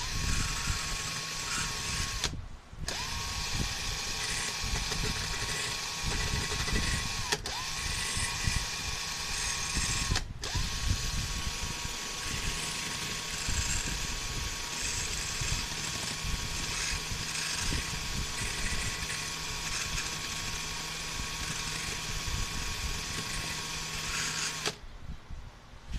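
Cordless drill fitted with a small sanding pad, running at a steady speed with an even whine. It is let off briefly about two seconds in, dips twice around seven and ten seconds in, and stops about a second before the end.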